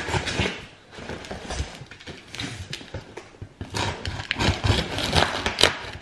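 A large bread knife sawing through packing tape on a cardboard box: light scrapes and knocks on the cardboard at first, then a run of quick, irregular rasping strokes from a little past halfway as the blade cuts along the tape.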